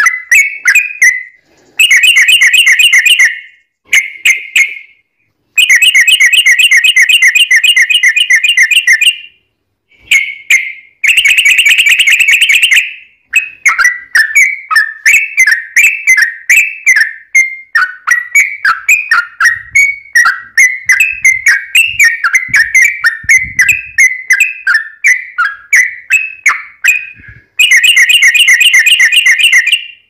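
Yellow-vented bulbul (trucukan) song: quick, bubbly chattering phrases, broken four times by long stretches of very fast trilling.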